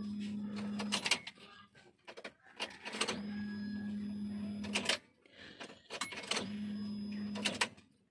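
A small electric control valve actuator from a Suzuki engine, switched on three times in short bursts. Each time it gives a steady buzz of about a second, with a click as it starts and stops. It is expected to move when powered and does not, which the mechanic takes as the sign that it is broken.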